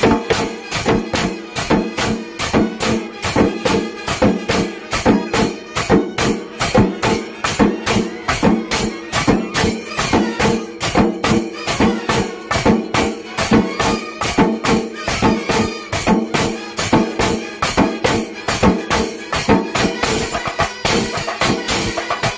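Shingari melam and band-set fusion music: a fast, even beat of drums and jingling cymbals, about four strokes a second, over steady held wind-instrument tones.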